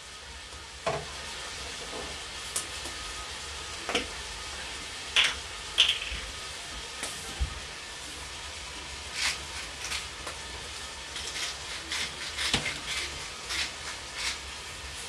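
Cubed chicken with sliced carrots, celery and onion sautéing in a stockpot while being seasoned: a steady low sizzle, broken by scattered clinks and knocks of a utensil against the pot.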